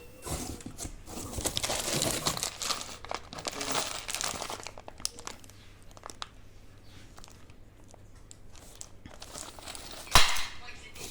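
Packaging crinkling and rustling as it is handled and pulled away, busiest over the first few seconds and then quieter, with one sharp knock about ten seconds in.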